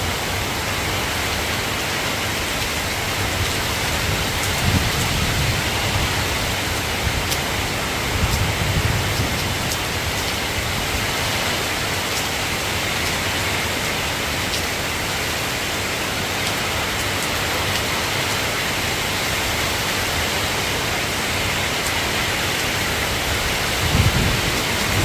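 Steady rain falling, an even hiss, with low rumbles of thunder swelling about five seconds in, again around eight seconds, and near the end.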